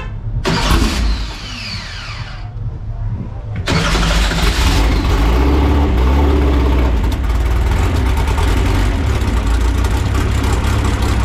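Start-up of a drag-racing air-cooled Volkswagen engine running on straight methanol, its oil and heads preheated beforehand: a whirring cranking sound falling in pitch, then a few seconds in the engine catches and runs loud and steady, revving a little at first.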